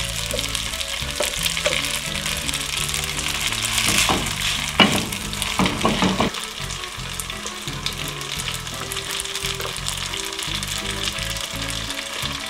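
Cream sauce sizzling as it is poured onto buttered spaghetti in a hot nonstick pot and stirred with a spatula. There are a few louder scraping strokes about four to six seconds in. Soft background music plays underneath.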